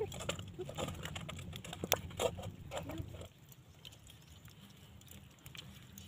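Wet handling of a plucked bird in a metal bowl: knife scraping, squelches and small clicks. A low rumble runs under it and cuts off about three seconds in, leaving it quieter.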